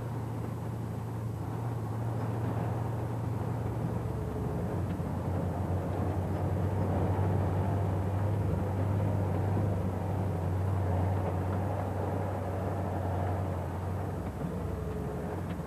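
Heavy armored dump truck's engine running under way, heard from inside its lead-lined cab with a rumbling rattle; the engine note drops a little about four seconds in and rises again near the end.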